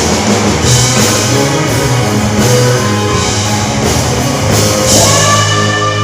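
A rock band playing: drum kit and guitar over held bass notes, with bright splashes of cymbal every couple of seconds.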